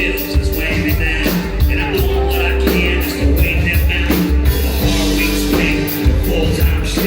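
Loud live band music from a concert: heavy bass, a steady drum beat and held guitar or keyboard notes, with some vocals mixed in.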